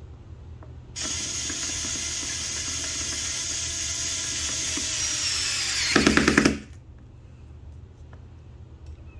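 Power screwdriver driving a screw into the wooden desktop: the motor runs steadily for about five seconds, then ends in half a second of loud, rapid clicking as the screw seats.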